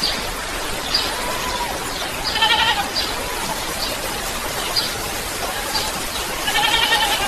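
Two drawn-out animal calls, each about half a second long and a few seconds apart, over a steady hiss of rain, with a short high chirp repeating about once a second.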